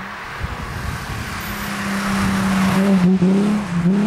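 Alfa Romeo 75's 3.0 Busso V6 approaching at speed and passing close by, its steady engine note growing louder, dipping in pitch twice near the end as the car goes past.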